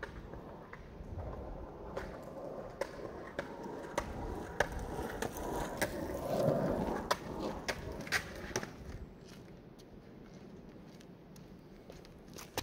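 Skateboard wheels rolling over asphalt, getting louder as the board passes close by about halfway through, then fading. Sharp clicks come through the rumble.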